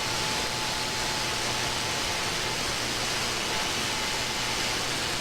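Steady static hiss from an RTL-SDR receiver demodulating AM around 26 MHz in the CB band with no station on frequency, just band noise, with a faint steady whistle in it.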